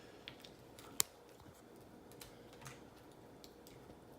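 Eating sounds: soft, scattered smacking and clicking from a mouth chewing seafood, with one sharp click about a second in.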